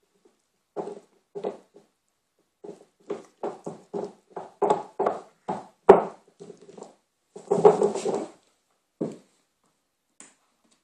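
Border collie puppy gnawing a hard chew bone: a run of short, uneven chomps, coming faster in the middle, with one sharp knock about six seconds in and a dense bout of chewing a couple of seconds later.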